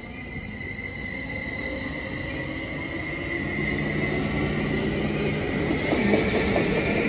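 Caltrain Stadler electric multiple unit train pulling out past the platform: a steady high whine over a rumble of wheels on the rails that grows louder toward the end.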